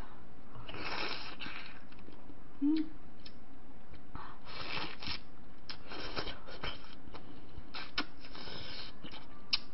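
Close-miked eating sounds: several short bursts of chewing and of fingers pulling apart boiled chicken from samgyetang, with a few light clicks.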